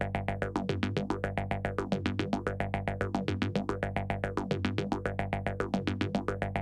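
Electronic background music: a synthesizer playing a fast, even run of short repeated notes over a steady held bass.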